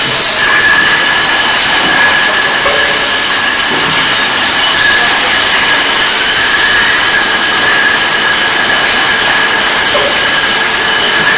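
Milk bottling line machinery running: conveyors and a rotary filler-capper moving plastic milk bottles, a loud steady mechanical din with a high steady whine over it.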